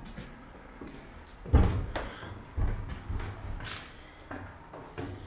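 Footsteps going down a stairway: a run of irregular heavy thuds, the heaviest about a second and a half in.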